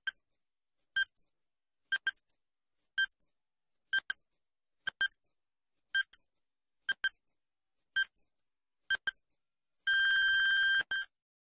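Quiz countdown timer sound effect: a short high beep about once a second, several of them doubled, ten in all. A steady beep of about a second near the end marks time up.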